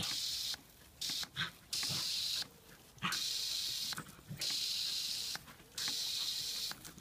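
Garden hose spray gun hissing in short bursts, about six in seven seconds, as its trigger is squeezed and released to squirt a jet of water. Each burst starts and stops abruptly.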